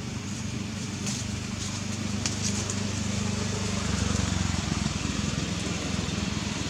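An engine running with a steady low hum over outdoor background noise.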